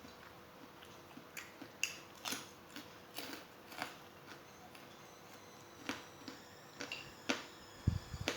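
Chewing and mouth sounds of someone eating: irregular short clicks and smacks, with a couple of low thumps near the end.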